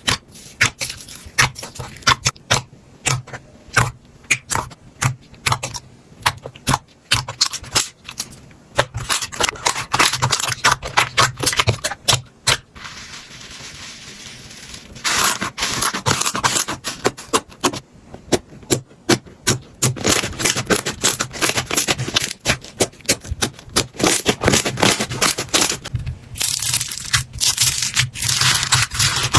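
Slime being squeezed, poked and stretched by hand, making rapid sticky clicks and crackling pops in quick runs, with a softer hissing stretch about halfway through.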